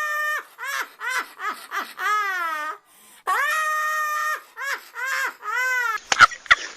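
A very high-pitched laughing sound effect: a held note, a quick string of short falling 'ha' bursts, then a long falling swoop, played twice in a row. Near the end it gives way to a different sound with sharp clicks.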